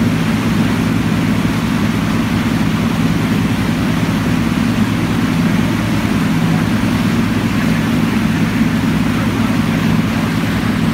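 Outboard motor running steadily at speed, with the rush of water and wind over it.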